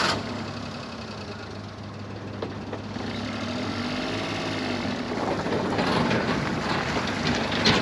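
A 1997 Daihatsu Hijet kei truck's small three-cylinder engine pulling the truck up a hill. Its revs rise and fall, and it grows louder as the truck comes closer.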